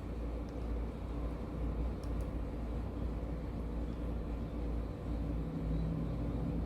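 A steady low mechanical hum and rumble, with a few faint small clicks.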